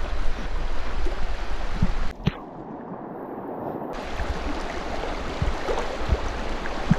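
Flowing stream water: a steady rushing wash with a low rumble underneath. It drops away abruptly about two seconds in and gradually builds back up.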